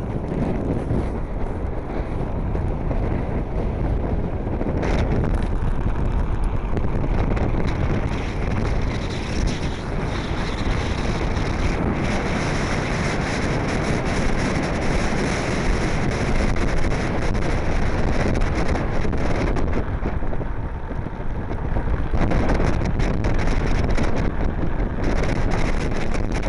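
Wind buffeting the microphone of a Blokart land yacht under sail at speed, a steady rush mixed with the rumble of its wheels rolling over the hard, cracked lake-bed crust.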